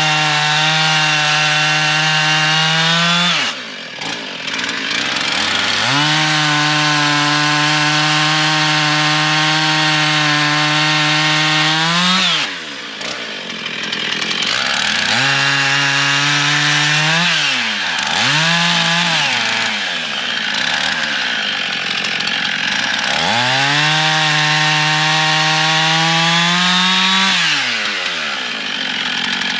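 Gasoline chainsaw cutting firewood. The engine is held at steady high revs through three long cuts and drops back to idle between them. In the middle it gives a few quick revs up and down.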